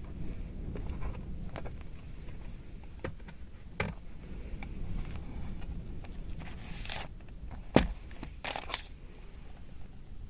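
Handling noises: scattered clicks and crinkling rustles over a low rumble, with one sharp knock about eight seconds in.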